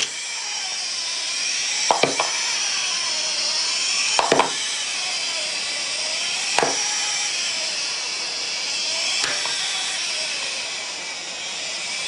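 Celebration sound effect: a steady hissing noise with a sharp pop or crack about every two to three seconds.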